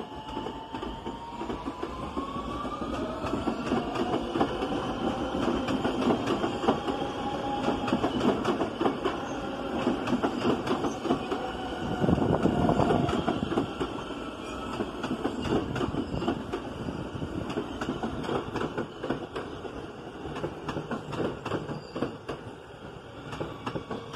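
New York City Subway R160B train with Siemens propulsion running on the rails: a rising whine over the first few seconds, then the wheels clicking rapidly over rail joints, loudest around the middle before easing off.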